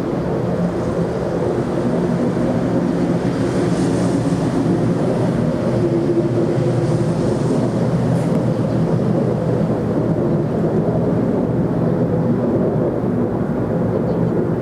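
Loud, continuous, unexplained outdoor noise: a low, steady drone with several held humming tones in it.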